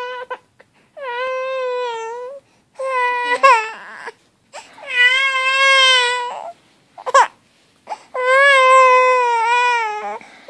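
Infant fussing and crying: about four drawn-out wails with short breaks for breath between them, and a brief squeal near the middle.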